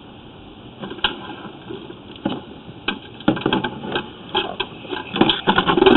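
Sewer inspection camera being pulled back out through the pipe: irregular clattering and knocks, sparse at first and growing busier and louder near the end.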